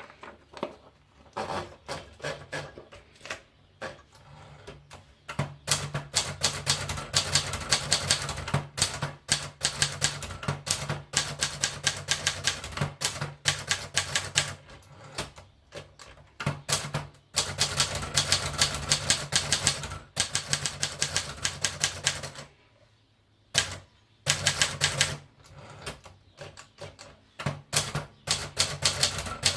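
Adler Contessa De Luxe manual portable typewriter being typed on, its typebars clacking against the platen. It starts with a few slow keystrokes, then runs of fast typing with a short pause near the two-thirds mark.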